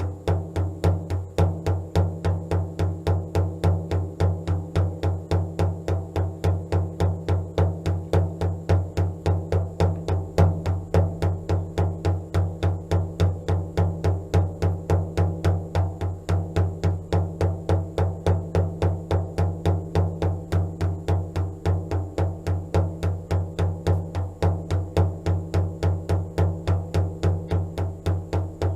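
Music: a steady, even drumbeat of about three beats a second over a low sustained drone.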